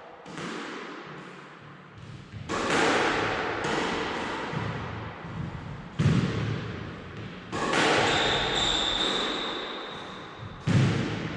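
A squash ball is struck by rackets and hit against the court walls in a backhand drill. There are about half a dozen sharp hits a second or more apart, each ringing on in the court's echo, with a brief high squeal in the second half.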